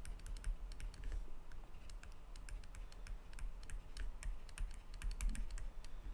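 Stylus pen tapping and clicking on a tablet screen while handwriting, an irregular run of light clicks.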